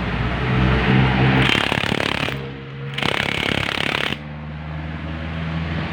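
An engine running steadily, with two bursts of harsh noise, about a second and a half in and again about three seconds in.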